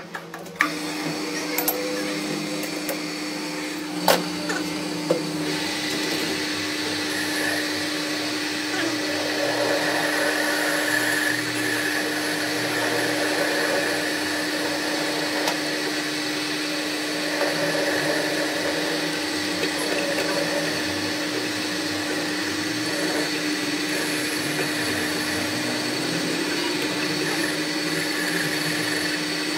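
Metal lathe starting up about half a second in, then running steadily with a constant whirring hum as its cutting tool turns the end of a threaded metal workpiece. A single sharp click sounds a few seconds in.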